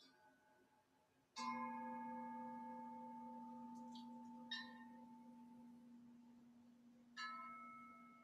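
Struck metal bell tones ringing out three times. The strongest strike comes about a second and a half in and rings on slowly fading for several seconds; a fainter strike follows midway and another near the end.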